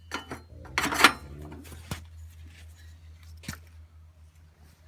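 Steel log clamp on a homemade chainsaw mill being handled: a short scraping clatter of metal about a second in, then a couple of light clicks, over a steady low hum.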